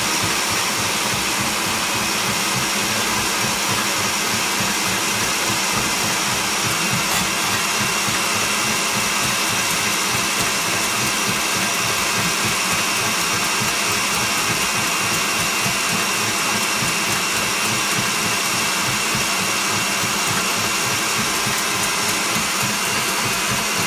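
Electric hand mixer running steadily at one speed, beating egg yolks in a glass bowl: a constant motor whine with a hiss.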